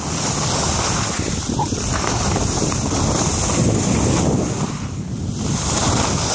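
Wind buffeting the microphone of a camera carried by a moving skier, mixed with the hiss and scrape of skis sliding over chopped snow, swelling and easing as he turns.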